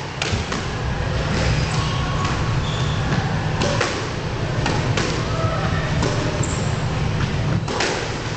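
Squash ball being struck by rackets and hitting the court walls and floor during a rally: sharp smacks at irregular intervals, echoing in the enclosed court, over a steady low hum.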